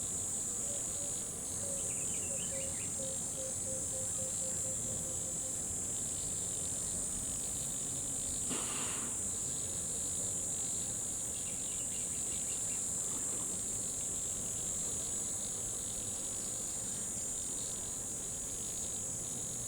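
Jungle riverside ambience dominated by a steady, high-pitched insect chorus of crickets. A run of short, low repeated notes sounds through the first five seconds, with faint chirps now and then and one brief louder call about halfway through.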